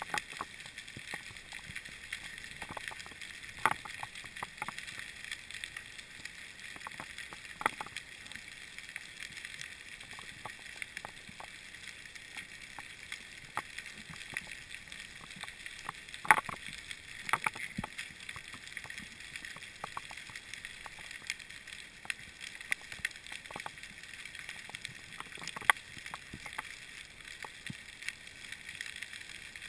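Underwater ambience picked up by a mask-mounted action camera in its housing: a steady hiss with scattered, irregular sharp clicks and crackles, a few of them louder.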